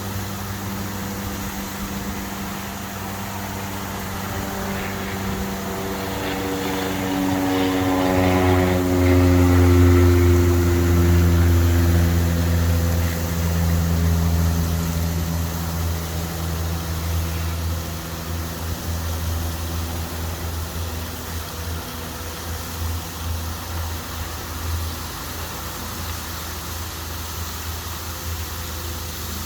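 A propeller aircraft passes by: its engine drone builds, is loudest about eight to twelve seconds in with its pitch falling as it goes past, then slowly fades. A steady rush of fountain water runs underneath.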